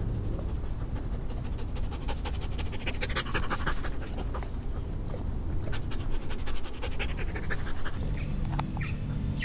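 A poodle panting rapidly close by, in quick, breathy strokes. A low steady hum comes in near the end.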